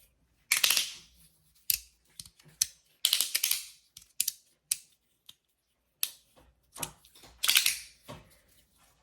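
3D printed magnetic fidget slider worked back and forth by hand: irregular sharp clicks as its very strong magnets snap the slide into place, with short scraping swishes between them.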